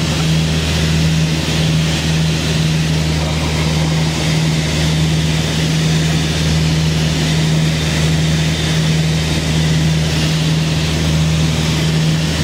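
Cabin drone of a Piper PA-30 Twin Comanche in cruise: its two piston engines and propellers running steadily, a strong low hum with a steady hiss over it.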